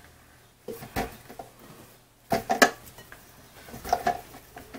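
Chunks of raw pumpkin being set into a stainless-steel stockpot, knocking against each other and the pot's metal side in a few separate knocks: about a second in, twice around two and a half seconds, and again near four seconds.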